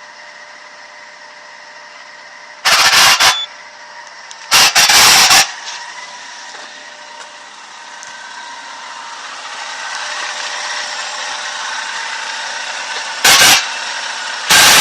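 Citroën C4 1.6's engine running, a thin steady whine sitting over it: the noise the owner finds suspect. Four short, very loud bursts of noise break in, and the running sound grows louder toward the end.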